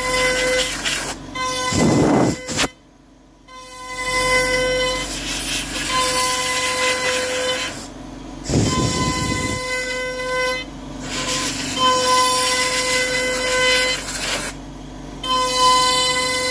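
CNC router spindle whining steadily at a high pitch while an 8 mm two-flute end mill cuts an adaptive pocket in pine, with the rasp of chips being thrown. Twice, about 2 seconds and 9 seconds in, short bursts of rushing air noise break in as a handheld nozzle clears the chips.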